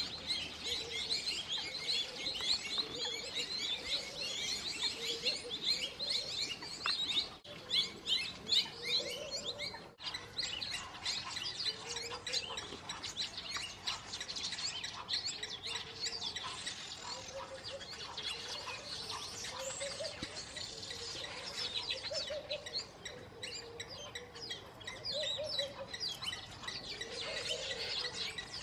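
A dense chorus of birds chirping and whistling, with a lower call repeating underneath it every second or two.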